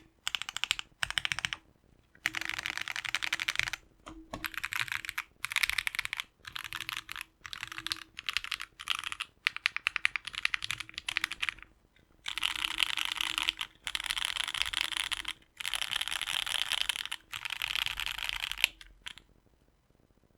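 Typing on a Mode Eighty tenkeyless custom mechanical keyboard with lubed and filmed JWK Haluhalo linear switches, an FR4 plate and GMK ABS keycaps. Bursts of fast keystrokes come with short pauses between them, and longer unbroken runs of rapid key presses follow in the second half.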